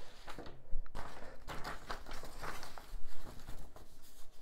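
A sheet of drawing paper rustling as it is handled and laid over a foam board, in short bursts with a few light knocks.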